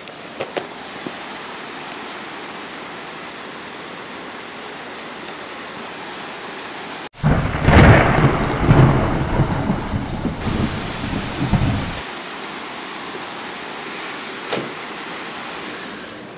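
Heavy rain pouring down, a steady hiss. About seven seconds in, a loud rumble of thunder comes in suddenly and rolls on for about five seconds before the rain alone returns.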